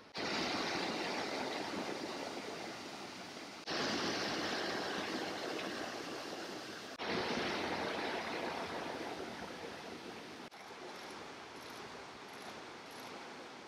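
A fast-flowing creek rushing over rocks, heard as a steady noise that jumps abruptly in level three times, about four, seven and ten and a half seconds in, and is softer after the last jump.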